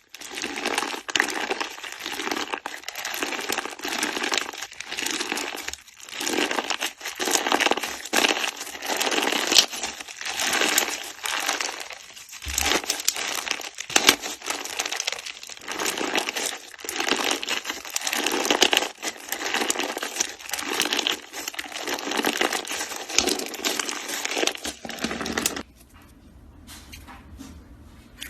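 Hands squeezing, poking and kneading slime, giving a dense run of crackling, popping and squishing, which stops near the end and leaves only a few faint clicks.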